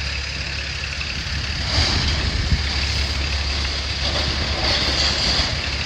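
Diesel engines of heavy demolition machinery, an excavator and trucks, running steadily with a low hum, with a few faint knocks about two seconds in.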